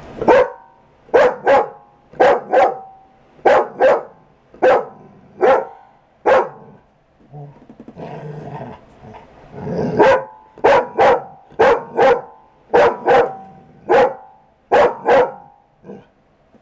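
Dog barking in short, sharp, loud barks, many in quick pairs, with a pause of about three seconds in the middle. It is demand barking at someone in bed, the dog carrying a tennis ball to get them to play.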